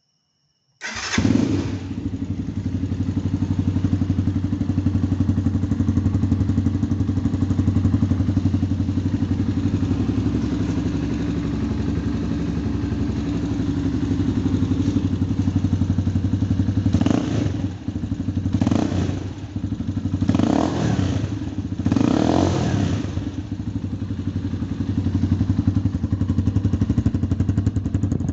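Motomel Skua 150's single-cylinder four-stroke engine on its stock exhaust, starting about a second in and then idling steadily. A little past halfway it is revved four times in quick succession, then it settles back to idle.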